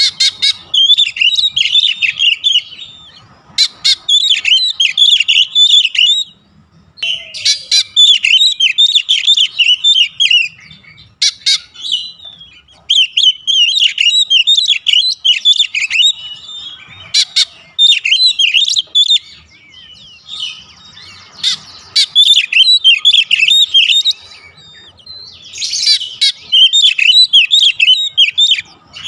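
Oriental magpie-robin (kacer) singing: loud, repeated bursts of rapid, varied whistles and chattering notes, each a few seconds long, with short pauses between.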